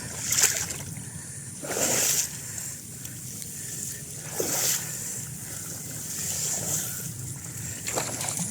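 Water splashing and sloshing in short bursts about every two seconds, over a steady low hum.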